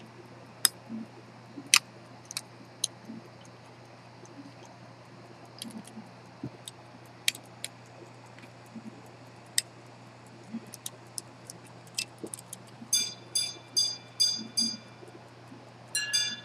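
Minute repeater of a century-old pocket watch chiming the time on its gongs, after sharp clicks from the watch being handled. The hammer strikes the lower gong five times for five o'clock, evenly spaced over about two seconds. Near the end, the alternating two-note ding-dong of the quarter begins.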